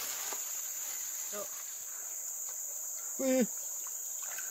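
Steady high-pitched drone of insects, unbroken throughout. A short voice call cuts in about three seconds in.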